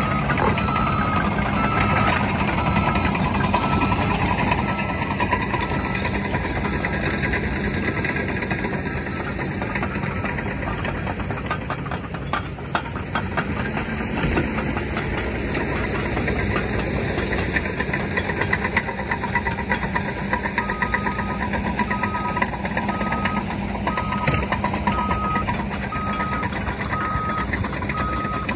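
Diesel engine of a tracked bulldozer running steadily as it works, with a reversing alarm beeping at the start and again from about two-thirds of the way in.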